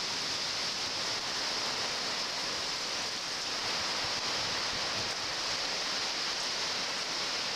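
Hurricane wind and heavy rain: a steady, unbroken rush of noise with no gusting break.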